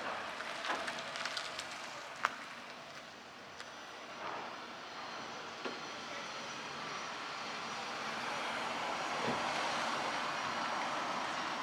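Steady rushing noise of a vehicle in motion, slowly growing louder, with a few faint knocks.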